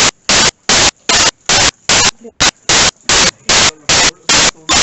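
Loud bursts of hissing static, about two a second, each starting and stopping abruptly with short quiet gaps between them.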